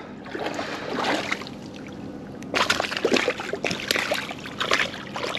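Feet stepping and splashing through shallow river water at the bank: quiet at first, then a quick run of splashes and sloshing from about two and a half seconds in.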